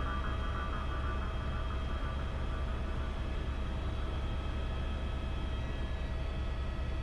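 Steady cabin noise of a tour helicopter in flight: a low drone from the rotor with a constant whine of several high steady tones from the turbine engine. Faint music dies away in the first couple of seconds.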